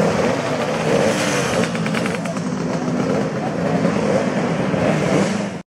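Racing motorcycle engine idling, its revs wavering up and down, cutting off suddenly near the end.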